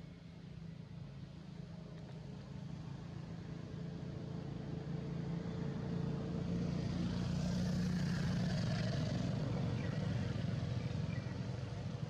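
A motorbike engine running on the road: a steady low hum that grows louder to a peak about eight seconds in as it passes, then fades.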